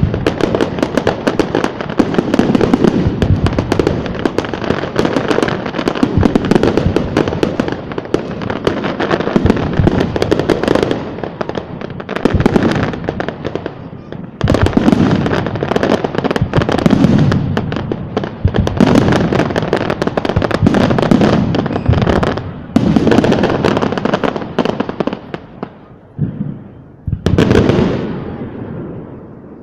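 Aerial fireworks bursting in rapid, overlapping volleys, a dense crackle of shots over a rumbling boom. It swells and fades in waves, with fresh loud barrages about halfway through, two thirds through and near the end.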